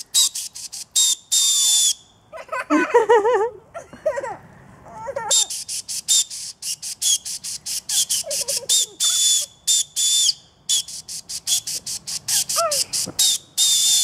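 Acorn cup whistle blown between the thumbs of cupped hands: a shrill, high-pitched whistle sounded in rapid short blasts like a train's chugging, with a break of a few seconds about two seconds in and a longer blast near the end.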